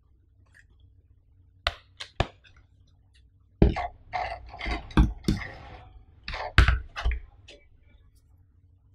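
Hands handling a laptop and a power bank: a few sharp clicks a little under two seconds in, then about three and a half seconds of knocking, scraping and rustling.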